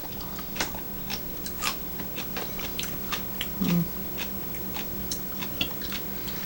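Close-up chewing and crunching of crisp food, kelp noodles with lotus root and vegetables, heard as many short, irregular crackly clicks. A brief hummed "mm" comes a little past halfway, and a steady low hum runs underneath.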